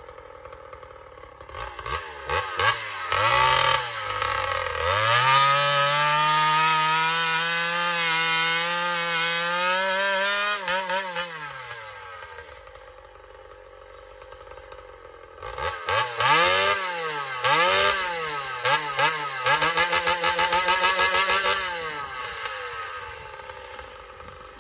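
Homelite two-stroke chainsaw running with its muffler removed: idling, blipped a few times, then held wide open for several seconds before dropping back to idle. This happens twice, the second time about halfway through.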